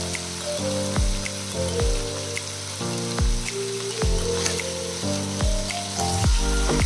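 Ground meat with garlic and onion sizzling in oil in a nonstick wok, under background music with sustained notes and a steady deep drum beat.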